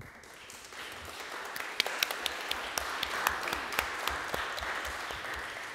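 Audience applause in a conference room, many hands clapping, starting right after the speaker's closing thanks and fading out near the end.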